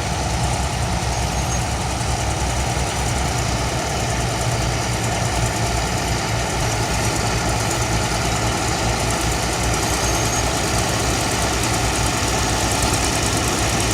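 Heavy machine engine running steadily, with a low, even rapid pulse.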